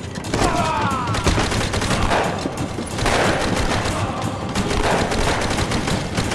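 Battle gunfire: dense rifle and machine-gun fire, many shots in quick succession throughout.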